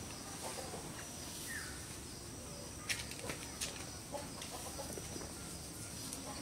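Faint clucking of farmyard poultry, with a couple of sharp rustles of straw about halfway through.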